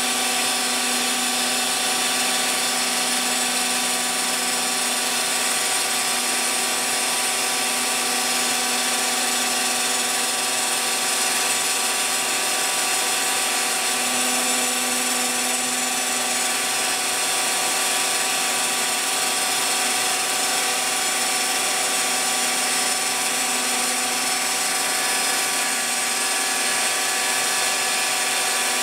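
Phlatprinter CNC mill's spindle running steadily while its small bit cuts through a fibreglass sheet: several constant tones over an even hiss, with no breaks.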